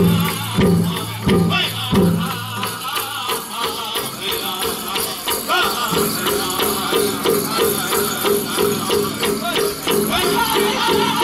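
Powwow drum group playing and singing a chicken dance song: heavy drum strokes about every two-thirds of a second at first, then from about six seconds in a faster, even beat of roughly three strokes a second, under high wavering voices.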